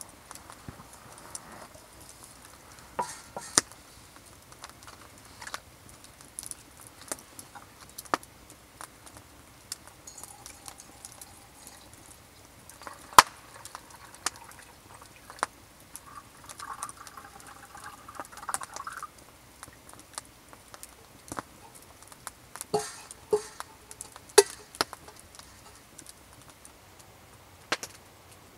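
Liquid poured from a metal kettle into a steel cup for a few seconds a little past the middle. Around it are scattered light clinks and knocks of the metal cup and kettle being handled.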